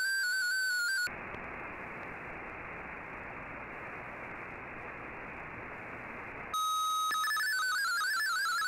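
Shortwave receiver audio of a digital data broadcast: a brief stepping tone burst, the RSID mode-identification signal announcing MFSK-32, ends about a second in, then plain shortwave static hiss. Near the end a steady tone starts, and about half a second later a rapidly hopping MFSK-32 data signal begins.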